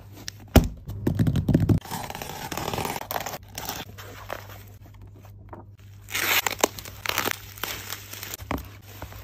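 Packaging being torn open and crinkled by hand during an unboxing: a sharp tap, then bursts of tearing and rustling.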